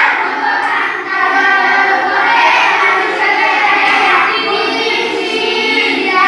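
Group of children chanting Arabic alphabet letters together in a sing-song recitation, with long drawn-out notes.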